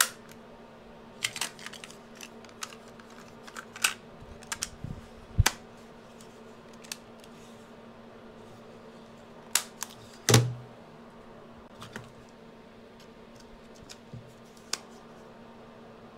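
Scattered sharp plastic clicks and knocks from a Sanyo MGP-44 cassette Walkman being handled and its buttons pressed, over a faint steady hum. No tape motor starts: the player is dead.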